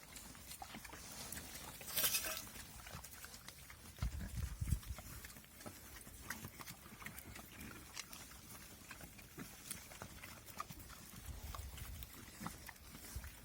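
Mangalica pigs grunting and snuffling, with many small scattered clicks and crunches. There is a louder, harsh burst about two seconds in and low thuds about four seconds in.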